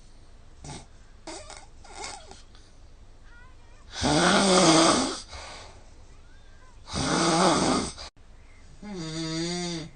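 A sleeping person snoring very loudly: two long, harsh snores about three seconds apart, then a shorter, pitched snore near the end. This is heavy, habitual snoring, which the app scored at 166, well above the typical score of 25.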